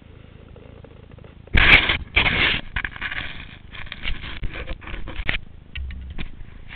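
A low steady rumble, then about one and a half seconds in sudden loud scraping and knocking in rough bursts for about four seconds, thinning to a few scattered clicks: a telemark skier landing from a jump and his gear scraping through the snow.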